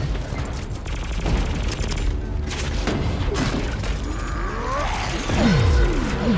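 Movie battle sound effects: gunfire and metallic mechanical clanking from fighting robots, then a loud explosion about five seconds in with several sweeps falling in pitch.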